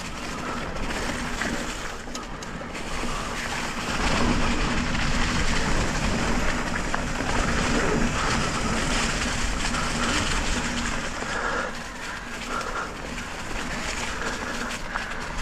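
Riding noise from an electric mountain bike on a dirt trail: wind rushing over a helmet-mounted action camera and tyres rolling over the ground. It grows louder about four seconds in and eases off after about twelve seconds.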